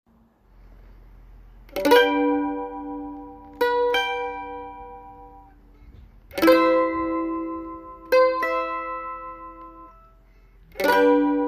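Mandolin strummed slowly: five chords about two seconds apart, each left to ring out and fade before the next.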